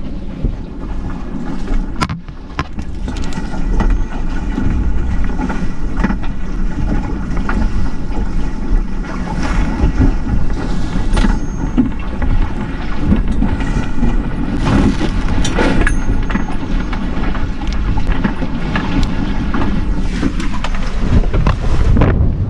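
Wind rushing over the microphone and water washing and slapping along the hulls of a Corsair F-27 trimaran sailing through choppy water, with scattered sharp knocks throughout.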